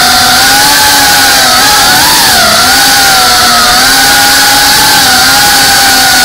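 FPV quadcopter's electric motors and propellers whining close to the microphone, the pitch wavering up and down with throttle changes, over a steady rushing hiss.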